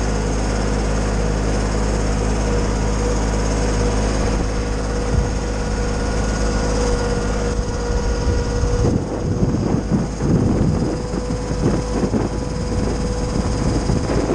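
Kioti subcompact tractor and Titan wood chipper running at a steady speed. About nine seconds in, irregular crunching starts as pine branches go through the chipper, with a louder burst near the end.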